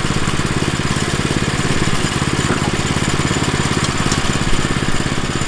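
Gas engine of a Woodland Mills HM122 portable bandsaw mill running steadily at idle, with an even rapid pulse; the saw is not cutting while the log is set on the bed.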